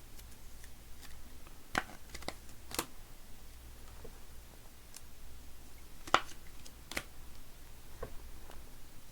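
Scattered clicks and taps of trading cards and plastic card cases being handled, with two sharper snaps, about two seconds in and about six seconds in.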